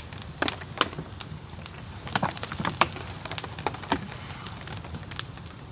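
A small campfire of damp wood crackling in steady rain: irregular sharp pops and ticks over an even hiss of falling rain.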